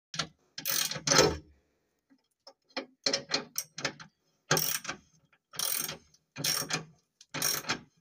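Socket ratchet wrench clicking in short runs, about a dozen strokes with pauses between, as a seatbelt anchor bolt is turned out of the car floor.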